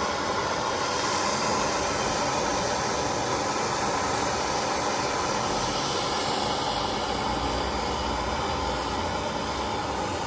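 Gas soldering torch flame burning with a steady rushing noise while it heats a copper pipe joint; the torch is thought to be running low on gas.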